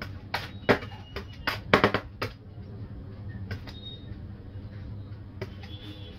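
A run of sharp clicks and knocks, most of them in the first two and a half seconds and a few more near the end, over a low steady hum.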